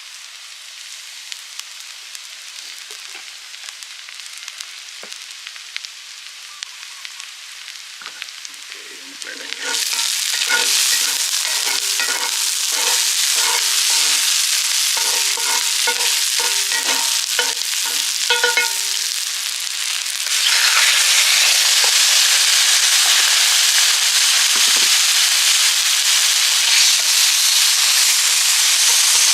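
Food frying and sizzling in a pan over a wood fire. About ten seconds in the sizzle jumps louder, and for the next nine seconds or so a utensil stirs and clinks against the pan at about two strokes a second. Near twenty seconds in the sizzling grows louder still.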